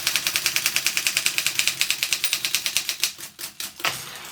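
Wartime Continental manual typewriter being typed on fast, its typebars striking in a rapid, even run of about ten strokes a second. About three seconds in, the run stops and a few scattered strokes follow.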